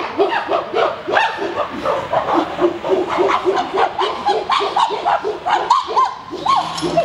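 Chimpanzees calling loudly in a fast series of hooting calls, about four to five a second, climbing higher in pitch near the end.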